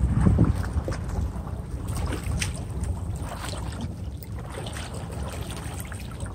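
Wind buffeting the microphone, strongest in the first second and then easing, over water lapping and splashing around a small boat, with a few short splashes.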